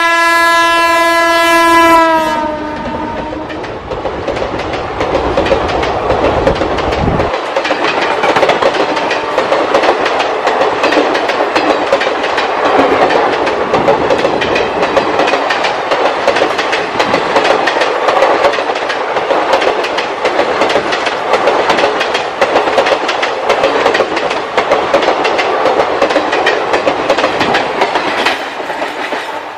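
Electric locomotive horn: one loud blast for about the first two seconds that drops in pitch as it fades. Then the rumble and rapid clickety-clack of passenger coaches passing at speed on the rails.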